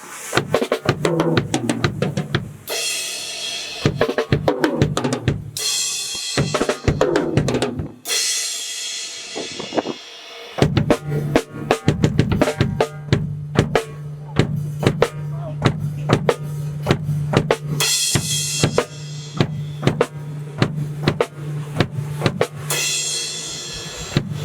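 Drum kit played in fills, with repeated cymbal crashes; about ten seconds in a steady low tone joins underneath.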